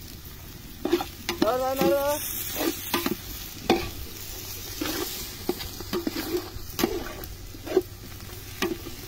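Metal spoon stirring and scraping in an aluminium pot of potatoes and onions frying in oil over a wood fire, with repeated sharp knocks of the spoon against the pot over a steady sizzle.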